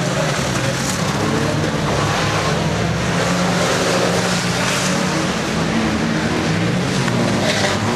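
Several banger-racing cars' engines running together at race pace, a steady drone under an even hiss.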